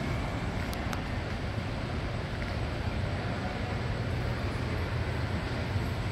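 Steady room noise of a large indoor hall: a constant low hum under an even hiss, with a couple of faint clicks about a second in.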